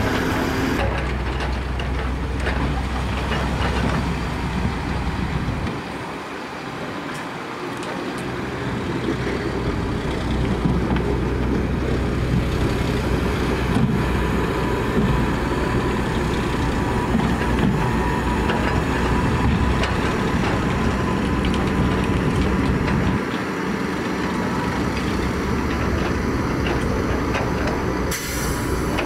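Heavy diesel engine of construction machinery running steadily, with a deep rumble that drops off briefly twice.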